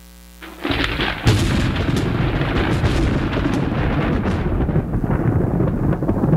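Recorded thunderstorm sound effect: after a short quieter gap, a sharp crack of thunder about a second in, followed by a long rolling rumble whose high crackling dies away after a few seconds.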